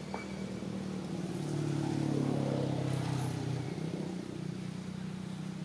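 A motor vehicle's engine running, growing louder for a couple of seconds in the middle and then easing off again over a steady low hum.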